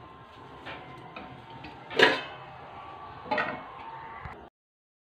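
Steel kitchenware clinking as gravy is served: a ladle knocking on a stainless steel plate and pan, with a loud ringing clang about two seconds in and another a second later. The sound cuts off abruptly after about four and a half seconds.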